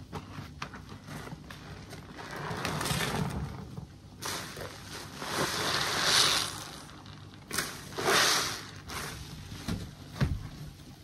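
Foamy body sponges squeezed and swished by hand in a basin of sudsy water: wet squelching and sloshing that comes in several swells, with water and suds streaming off as the sponges are wrung. The loudest squeezes come just past the middle and again about three-quarters of the way through.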